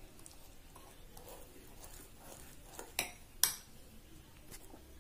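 A metal fork stirring gram flour and curd in a glass bowl: soft, quiet scraping, with two sharp clinks of the fork against the bowl about three seconds in.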